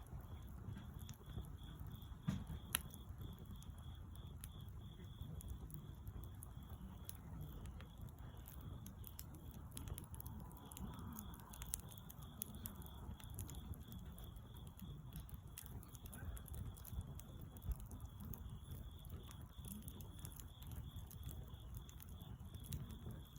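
Wood fire crackling, with irregular small pops and snaps over a low steady rumble.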